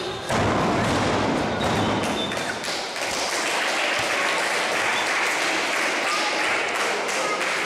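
A heavy thud of a wrestler crashing onto the ring mat from the ropes about a third of a second in, followed by spectators cheering and clapping.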